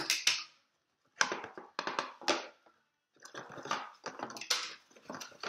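Cardboard game box and its insert being handled and crumpled, in several crackling bursts with short quiet gaps between them.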